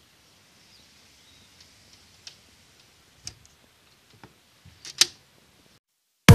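Cat eating dry kibble from a plastic bowl: a scatter of small sharp clicks and crunches, the loudest about five seconds in.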